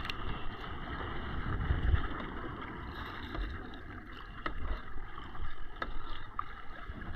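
Wind gusting over the microphone on a kayak at sea, a rumbling wind noise over a steady wash of water, with a few faint light knocks.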